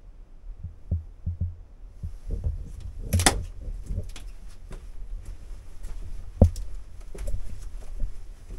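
Footsteps, scuffs and knocks of a person moving through a narrow rock cave passage, uneven and irregular, with a loud scrape about three seconds in and a sharp knock just past six seconds.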